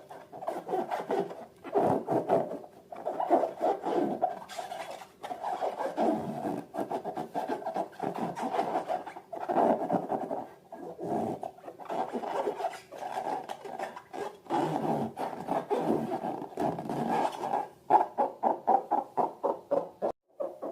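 Rubbery rasping and rubbing of balloons being handled, in quick uneven strokes that settle into a regular pulse of about five strokes a second near the end.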